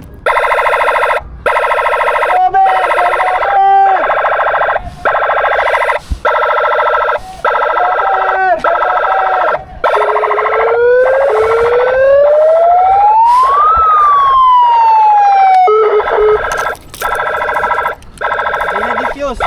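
Loud electronic alarm from an airsoft prop bomb going off: a harsh, buzzing tone that cuts in and out, with a siren sweep that climbs and then falls about halfway through. It sounds once the wires are being pulled, as the bomb prop's alarm.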